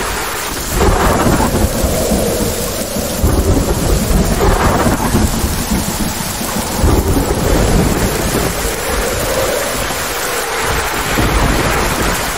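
Thunderstorm: steady heavy rain with rolls of thunder that swell and fade several times, the strongest about a second, four and a half seconds and seven seconds in.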